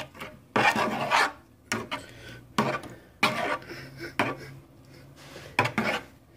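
A spoon stirring and scraping oatmeal in a bowl: several separate short scrapes with pauses between them.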